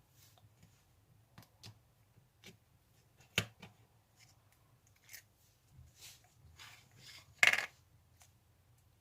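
Slime being handled by hand: a scattered series of small sticky clicks and pops. There is a sharper pop about three and a half seconds in and a louder, longer one near the end.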